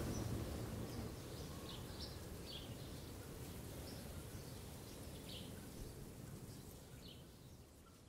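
Faint outdoor ambience: a steady low rumble with a few scattered short bird chirps, fading out toward the end.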